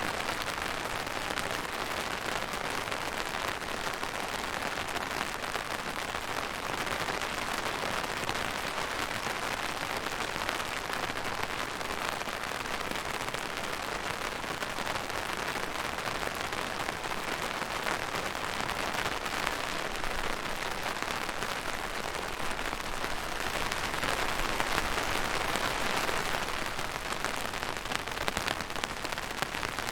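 Steady rain falling on a surface, a dense even hiss of many drops, swelling a little in strength about three-quarters of the way through.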